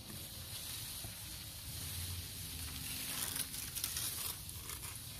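Faint rustling and crackling over a steady high outdoor hiss, with the rustling heaviest midway through and fading toward the end.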